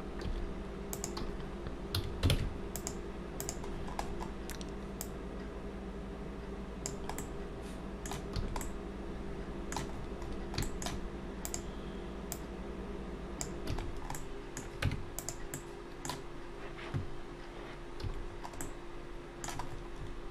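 Computer keyboard keys and mouse buttons clicking in scattered single strokes and short runs as Blender shortcuts are entered, over a steady low hum.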